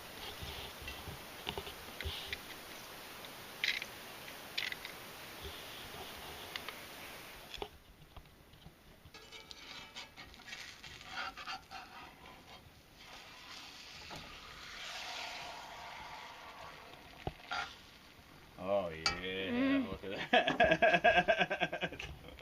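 Camp cooking: utensils clinking and scraping in a pan, with a light sizzle, as breakfast of sausage gravy and eggs is made. Near the end a loud voice-like call rises and pulses.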